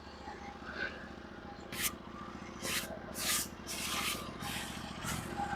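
Short, repeated hissing strokes of a brush sweeping sawdust off a sawn log, about two a second, starting about two seconds in, over a steady low hum.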